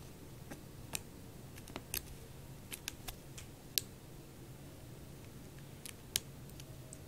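A kitten's paws and claws batting at a hair tie on a carpet-covered scratching-post base: about a dozen light, irregular clicks and ticks over a faint low hum.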